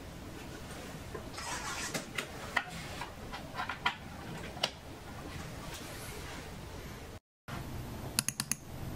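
Desk handling sounds as a small external hard drive enclosure is set down and its cable plugged in: a short rustle, then a scattering of light clicks and knocks. Near the end comes a quick run of sharp clicks.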